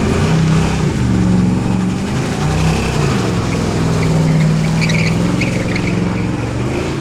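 Car engine held at high revs during a burnout, its pitch rising and falling, with tyres squealing against the pavement.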